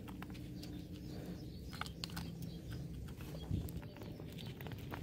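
Light clicks and taps of hands working meat into metal drink cans, with a firmer knock about three and a half seconds in.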